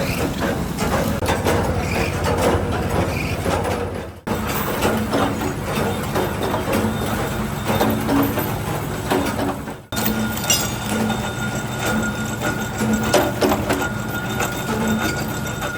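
Workshop machinery running with a steady low hum and scattered clicks and knocks. It breaks off abruptly twice, about four seconds in and near ten seconds.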